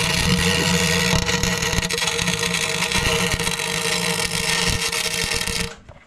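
Kemppi MIG welder arc crackling and hissing steadily as it welds a VW Polo's differential spider gears solid, cutting off abruptly near the end.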